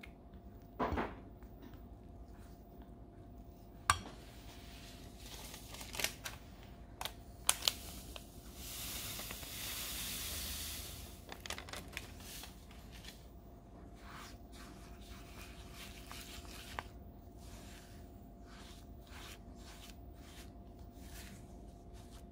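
A silicone spatula stirring and scraping soft cream cheese and butter in a bowl, with a few sharp clicks and knocks against the bowl. About nine seconds in, a soft hiss lasting some three seconds as granulated sweetener is poured into the bowl.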